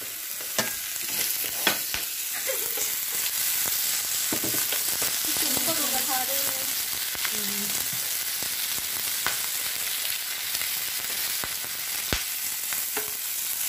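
Pork and shrimp sizzling steadily on a tabletop mookata grill pan, with occasional sharp clicks of tongs against the pan as the pieces are turned.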